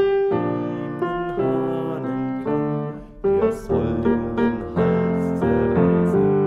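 Grand piano playing a phrase of song accompaniment in chords, new chords struck about every half second and left to ring.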